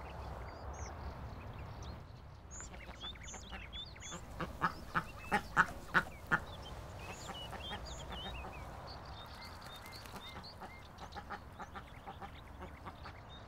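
Mallard duck quacking: a quick run of about six loud quacks about halfway through, and a few softer ones near the end. Faint high chirps sound in the background.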